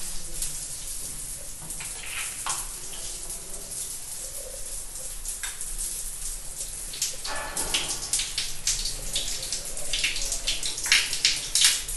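Water running from a wall-mounted shower mixer and splashing over a hand held under it, with heavier, louder splashes near the end.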